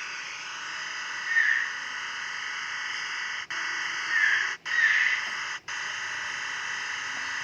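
Short bird calls, about four of them, over a steady high-pitched hiss. The sound drops out briefly three times and stops abruptly near the end.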